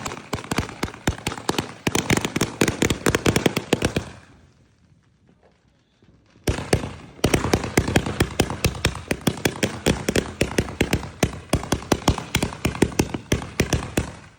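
Consumer fireworks going off in rapid strings of sharp bangs, several a second. They stop for about two seconds near the middle, then start again and keep going.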